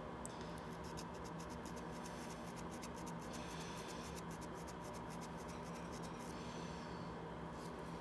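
Very fine sandpaper rubbing in quick, light scratching strokes across a burned contact of a C5 Corvette ignition switch, polishing the burn spot down. Faint, over a steady low hum.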